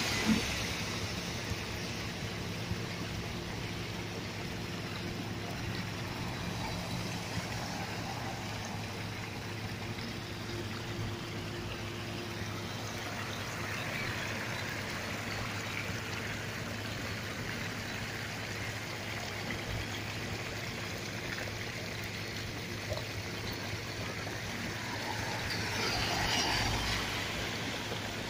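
Floodwater rushing and splashing along the side of a vehicle driving through it, over a low, steady engine hum. The water noise swells twice, the louder near the end.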